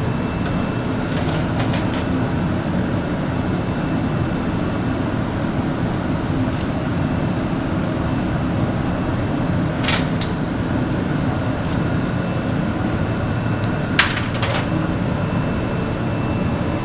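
Steady low roar of a glassblowing glory hole's gas burner, with a few sharp metallic clinks of the steel punty rod against the bench, the loudest about ten and fourteen seconds in.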